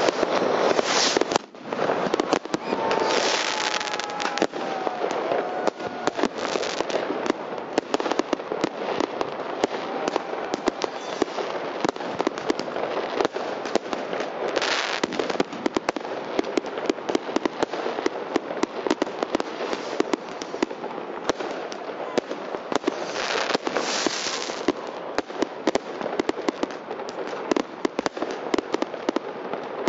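Dense, continuous popping and banging of many New Year's fireworks and firecrackers going off at once, with louder swells of crackling every few seconds.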